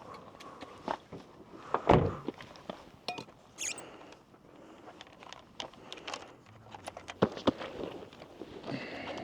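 Gear being handled and packed into a backpack: scattered knocks, thuds, clicks and rustles, with one loud thump about two seconds in.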